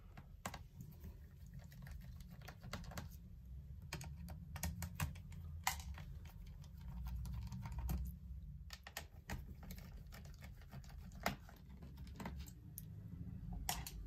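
Scattered light clicks and taps of a small screwdriver and screws against a laptop's plastic chassis as the battery screws are taken out, over a faint low hum.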